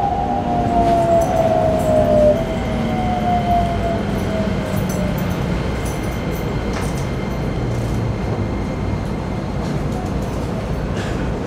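Keikyu New 1000 series train's Toyo IGBT-VVVF inverter whining, its pitch falling over the first few seconds as the train slows, then settling into faint steady high tones, heard inside the passenger car over the constant rumble of the wheels on the track.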